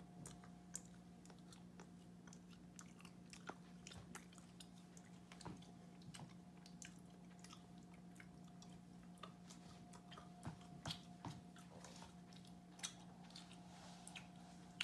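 Faint chewing and mouth clicks as a person eats a piece of milk chocolate, with scattered small smacks, over a steady low hum.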